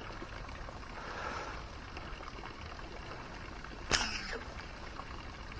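Faint steady outdoor background, then a single sharp snap about four seconds in with a brief ringing tail that falls in pitch: the rubber band of a fishing slingshot being released as a shot is taken.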